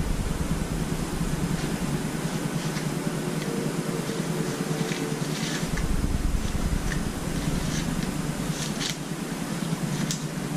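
Steady droning background hum, with a few light crinkles and taps now and then as a hand handles the paper hang tags on a lab coat lying in an opened plastic bag.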